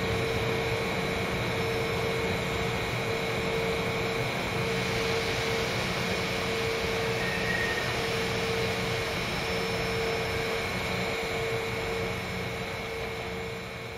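Steady machine hum of a railway terminal's platforms: a constant mid-pitched tone over a broad hiss, with fainter high steady tones. It begins to fade out near the end.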